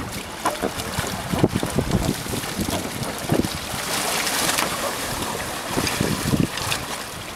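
Water splashing and sloshing as swimmers haul an inflatable life raft over; about four seconds in comes a rush of water as the raft lifts out and pours off, then more splashes around six seconds as it lands right side up.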